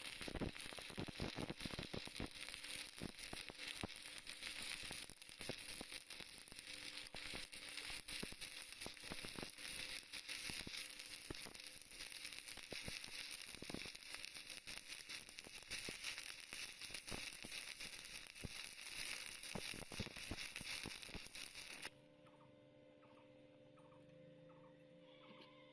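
Stick welding arc with a 6013 electrode, crackling and sizzling steadily as a bead is run. The arc stops abruptly about 22 seconds in, leaving a faint steady hum.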